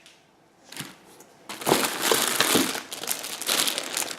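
Packing material crinkling and rustling as it is handled, starting about a second and a half in and going on unevenly.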